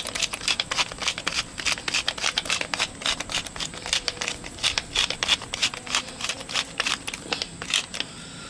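Wooden pepper mill grinding black peppercorns: rapid, irregular crunching clicks as the top is twisted back and forth, stopping near the end.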